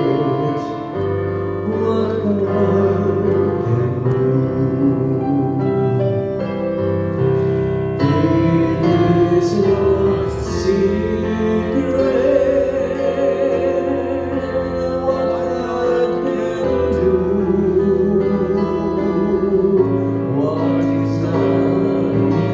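Church worship music: singing over keyboard accompaniment, with sustained chords changing every second or two.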